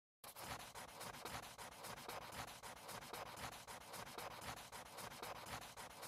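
Faint pencil scratching on paper in quick repeated strokes, the sound of sketching.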